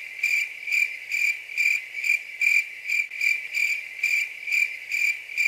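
A cricket chirping in a steady rhythm, a little over two chirps a second, on one high note.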